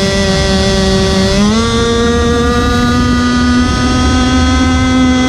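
30cc two-stroke gasoline engine of a 4-foot RC speed boat running at high revs, heard close up from on board. Its pitch rises about a second and a half in, then holds steady.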